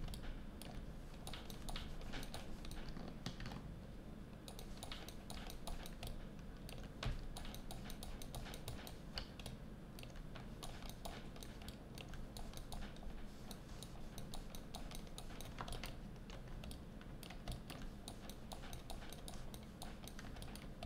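Irregular clicking of a computer keyboard and mouse, many small clicks coming in quick runs, over a low steady hum.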